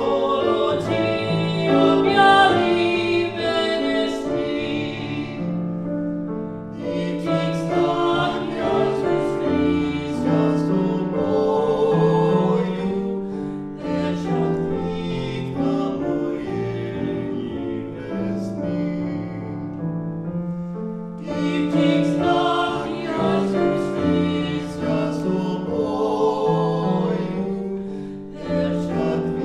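Male classical singing of a Ukrainian art song in Ukrainian, with vibrato, accompanied by grand piano. The voice drops out briefly about twenty seconds in while the piano carries on.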